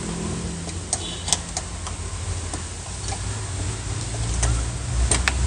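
A few sharp clicks and taps of car door lock and handle parts being fitted into place, over a steady low rumble.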